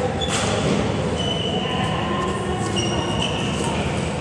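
Echoing sports-hall sounds: a sharp thud about a third of a second in, then several short high squeaks of trainers on the hall floor as players move about.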